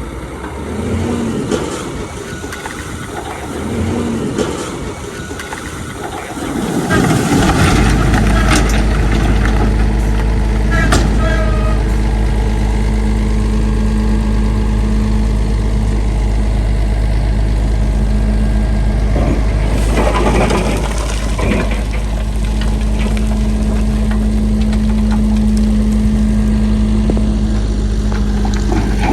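Heavy earthmoving machine's diesel engine running close by, loud and steady with a deep drone from about seven seconds in; quieter engine noise with a few louder swells before that.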